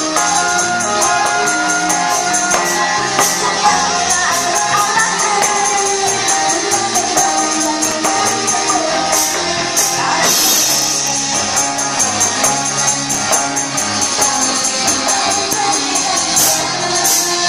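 Live dangdut rock band playing loudly: electric guitar, keyboard and drum kit, with a steady beat throughout.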